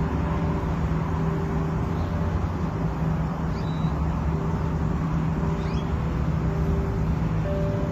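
Steady outdoor background rumble with a low hum, and two faint short high chirps about three and a half and six seconds in.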